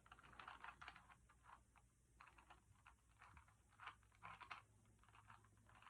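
Faint, irregular clicking and rustling as a new Rubik's Cube and its plastic packaging are handled.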